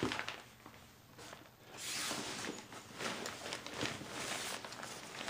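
Softbox fabric rustling and scraping against a soft fabric carrying bag as the collapsed softbox is slid in, with small irregular knocks. It starts about two seconds in, after a quieter moment.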